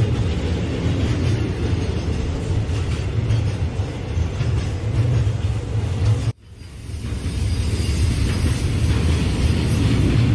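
Freight train of gas tank wagons rolling past on the rails, a steady low rumble. About six seconds in the sound cuts off abruptly, then swells back up to the same rumble.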